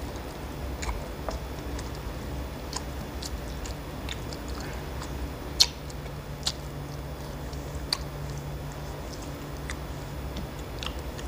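Two people eating rice by hand from steel plates: chewing and mouth sounds with scattered sharp clicks of fingers and food against the metal, the loudest click a little past halfway.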